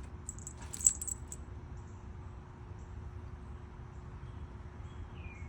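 A brief, high jingle of small metal pieces about a second in, with one sharp loud clink, over a low steady background hum; a faint short bird chirp near the end.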